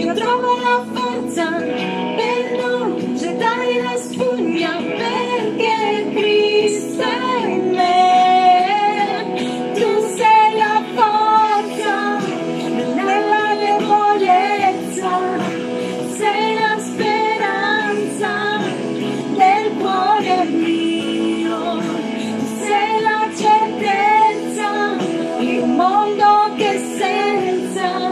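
A woman singing an Italian Christian worship song over instrumental backing music.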